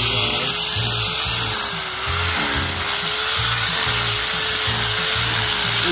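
Corded electric drill running steadily as it bores into dry ground, its motor whine wavering slightly under load, over background music with a steady beat.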